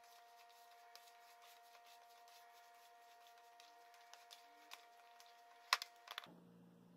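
Faint rubbing and soft ticks of hands kneading stiff cassava-starch dough in a plastic bowl, over a faint steady hum. A sharp knock comes about three-quarters of the way through, with two smaller ones just after.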